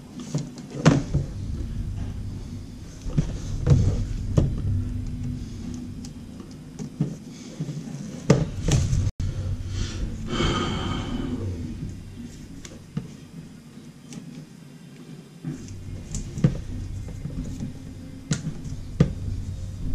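Scattered light clicks, knocks and rattles of a wire and a length of flexible metal electrical conduit being handled and worked by hand, with a brief scraping rush about ten seconds in.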